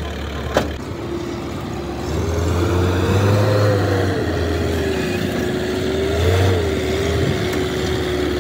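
Master Forland light truck's engine running and revving as the truck pulls away, its pitch rising and easing off twice. There is a single sharp knock just after the start.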